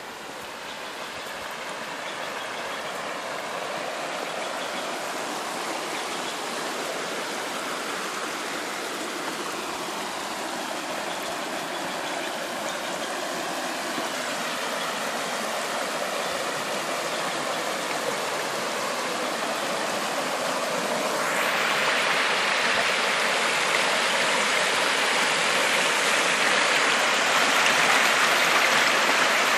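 Shallow creek rushing over a rocky riffle, a steady rush of water that grows louder throughout and turns brighter and fuller about two-thirds of the way through.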